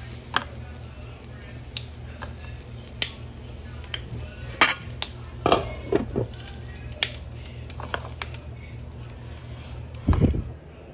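Kitchen utensils clicking and knocking against a pan and dishes as the finished egg-and-cheese dish is handled for tasting, with a steady low hum underneath. A heavier thump comes near the end.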